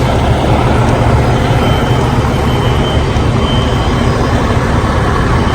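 Steady, loud low rumble that does not change.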